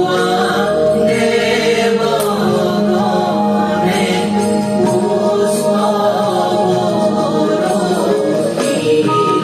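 Show soundtrack music with a choir of voices singing long held notes.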